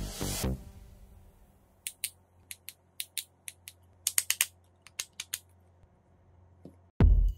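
A series of sharp, irregular plastic clicks from a 3D-printed PLA ankle joint as it is pressed together and swung on its pivot, bunched together about four seconds in. Electronic background music fades out at the start and comes back just before the end.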